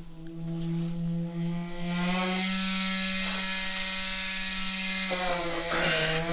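Concrete poker vibrator running in wet concrete with a steady high hum. About two seconds in it gets louder and harsher and rises slightly in pitch; a little before the end the pitch sags briefly and then comes back up.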